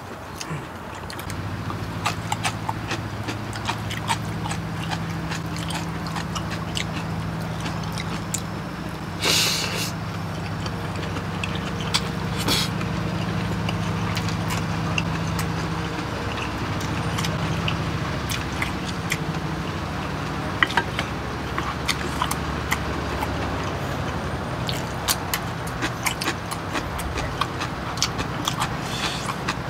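People eating with chopsticks: chewing, slurping and the clicks of chopsticks and spoons on dishes, with two louder rushing noises about nine and twelve seconds in. A steady low hum runs underneath from about a second in.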